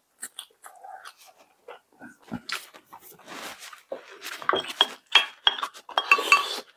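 Eating sounds: soft chewing and mouth noises, then a spoon clinking against a bowl several times with short ringing tones, the loudest clinks in the second half.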